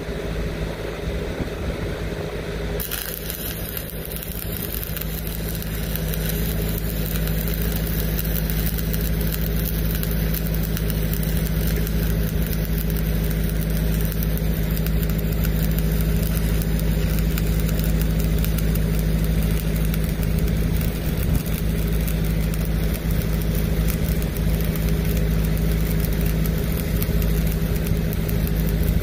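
Stick-welding arc from a low-hydrogen electrode on an uphill pipe weld, crackling and hissing steadily; the hiss comes in stronger about three seconds in. Underneath, the diesel engine of a Lincoln Pipeliner 200D engine-driven welder runs at a steady speed.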